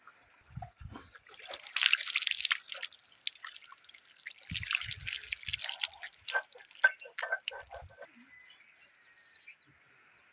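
Water splashing and dripping in two short bouts, followed by a run of quick drips, with a few dull knocks.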